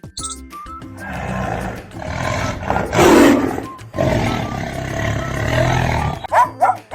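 A large wild animal roaring: a long, rough roar that swells to its loudest about three seconds in, runs on, and stops about six seconds in, over soft background music.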